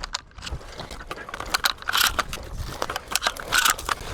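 Irregular crunching and scraping steps on dry, gravelly ground, with rustling in between.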